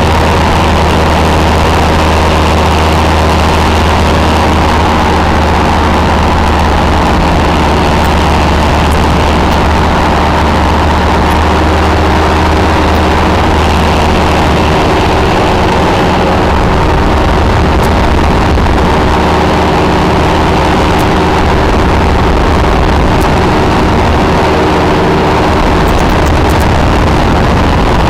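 Engine and propeller of a two-seat weight-shift microlight trike running hard through the takeoff run and climb-out, a steady drone with rushing wind over it. The low note shifts a little about halfway through.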